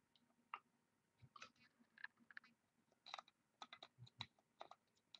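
Faint, scattered short clicks and taps of a trading card and a clear plastic one-touch card holder being handled, coming more often in the second half.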